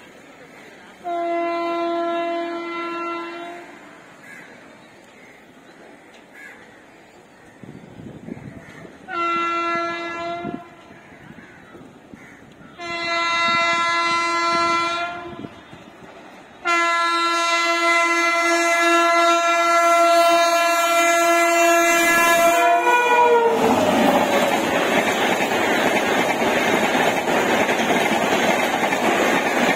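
WAP-7 electric locomotive's horn sounding in four blasts, three short ones and then a long one of about six seconds that drops in pitch at its end as the locomotive passes, followed by the loud steady noise of the train going by.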